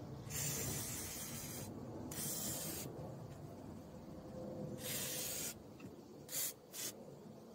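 WD-40 aerosol can spraying lubricant onto a metal hinge and its support leg in separate hissing bursts: three of about a second each, then two very short puffs near the end.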